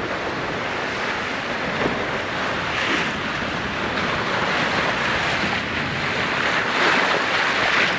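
Bow wave rushing and splashing along the hull of a JPK 39 FC sailboat under way, mixed with wind noise on the microphone. The rush swells a little about three seconds in and again near the end.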